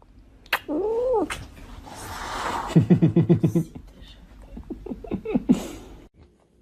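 A cat calling: one rising-and-falling meow about a second in, a rapid pulsing call around three seconds in, then a few short cries near the end.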